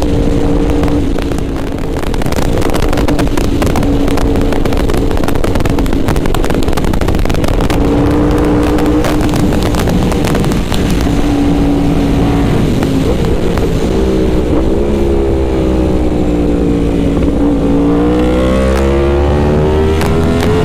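Yamaha YZF-R1M's crossplane inline-four engine running at a steady cruise. Its pitch dips about two-thirds of the way through, then rises steadily near the end as the bike accelerates. Low wind rumble on the microphone grows stronger as the speed builds.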